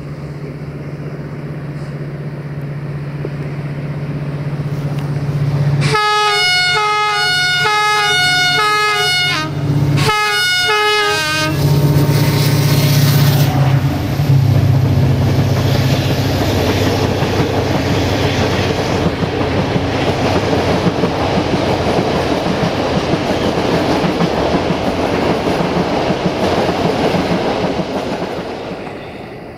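Electroputere 060-DA (LDE 2100) diesel-electric locomotive with a Sulzer engine approaching with a steady engine drone. It sounds its horn twice, with alternating notes, about six and ten seconds in. It then passes close by hauling passenger coaches, giving a loud rumble with wheel and rail noise that fades near the end.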